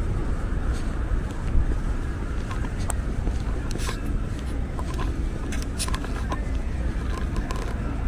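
City street ambience at night: a steady low rumble of distant traffic, with scattered light clicks and taps.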